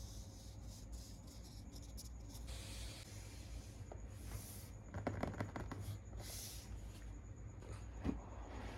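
Packaging and fabric being handled: soft rustling and rubbing swishes, a quick run of small clicks about five seconds in, and a single knock near the end, over a low steady hum.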